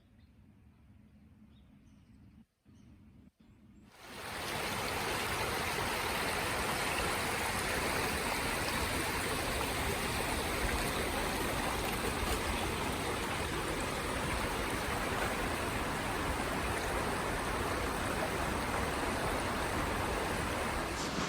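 Near silence, then about four seconds in a steady, even rushing noise comes in and holds.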